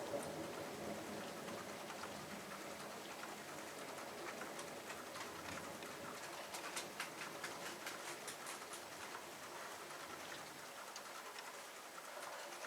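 Rain falling during a thunderstorm, with individual drops pattering and ticking sharply, thickest a few seconds in. The last of a thunder rumble dies away at the start.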